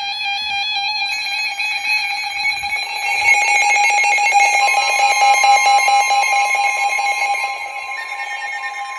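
Emergency Alert System alert tones on NOAA Weather Radio: several steady electronic tones held together, with another steady tone joining about halfway through, between two warning messages.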